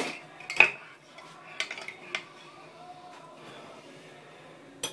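Metal spoon stirring in a ceramic mug and clinking against its side: a few sharp clinks within the first two seconds, the loudest just over half a second in.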